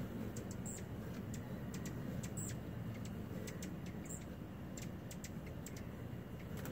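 Hummingbirds at a feeder: three brief high chirps, about a second and a half apart, among many scattered sharp ticks, over a steady low hum.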